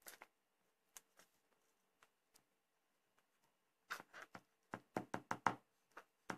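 Light taps of a liquid-glue bottle's tip dabbing dots of glue onto cardstock laid on a craft mat. A few scattered taps come first, then a quick run of sharper taps about four seconds in.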